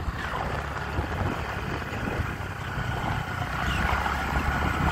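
Scooter riding along a road: a steady low drone of engine, road and wind noise.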